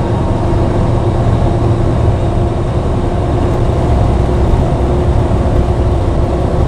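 Steady low drone of a semi truck's diesel engine and road noise, heard from inside the moving cab.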